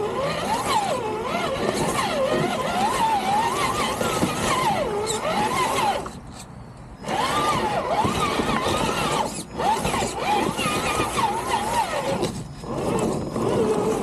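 Traxxas TRX-4 Land Rover Defender RC crawler's electric motor and gears whining, the pitch rising and falling with the throttle. It cuts out for about a second around the middle and briefly twice more near the end.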